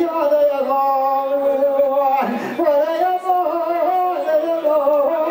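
An elderly man singing Kurdish dengbêj into a handheld microphone: a single male voice holding long, wavering notes, with a brief break for breath about two seconds in.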